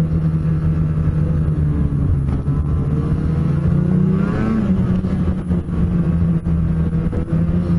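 Snowmobile engine running steadily as the sled rides along a groomed trail, heard from on board. The revs climb briefly about four seconds in, then settle back.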